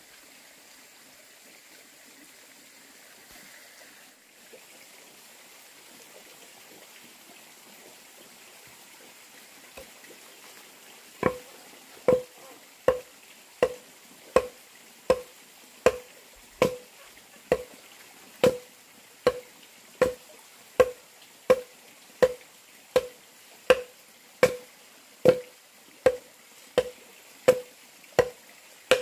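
An axe chopping into a wooden log, hollowing it into a trough, in steady strokes about every 0.8 seconds. Each stroke is a sharp knock with a short ring. The chopping starts about eleven seconds in, after faint background hiss.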